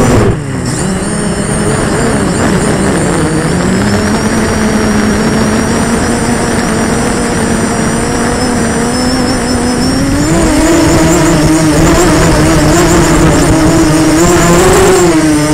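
Quadcopter drone's electric motors and propellers buzzing loud and close to the onboard camera, a steady droning whine. The pitch dips sharply just after the start, settles lower, and rises again about ten seconds in as the motor speed changes.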